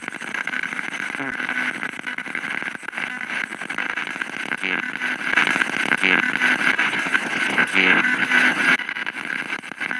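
Handheld spirit box sweeping through radio frequencies, its small speaker giving a continuous choppy static hiss with brief louder fragments. One fragment near the end is taken by the ghost hunters for the name "Erik".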